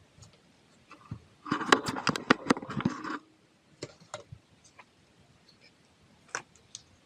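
Clicking and scraping of small hard objects being handled, with a dense run of sharp clicks and rubbing for under two seconds about a second and a half in, then a few scattered single clicks.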